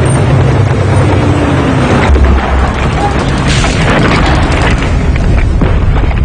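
Booming explosions over a continuous rumbling din, typical of battle sound in wartime footage. The heaviest low boom comes about two seconds in.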